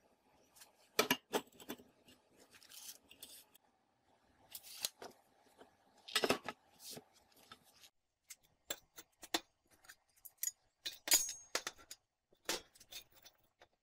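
Lengths of rectangular steel tube being set down, knocked together and slid across a steel-topped work table: a series of sharp metal clanks and scrapes, about eight in all.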